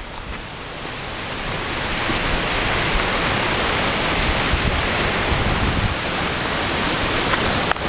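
Ocean surf breaking on a pebble beach, a steady, even rush of noise that builds a little over the first two seconds and briefly dips near the end.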